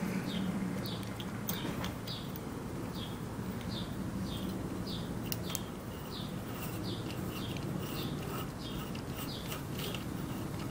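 A bird calling over and over in short falling chirps, about two a second, over a low steady hum. A few faint clicks come through as well.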